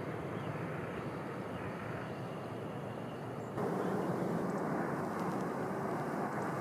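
Distant Shinkansen high-speed train running along an elevated viaduct: a steady rushing noise, which jumps abruptly louder about halfway through.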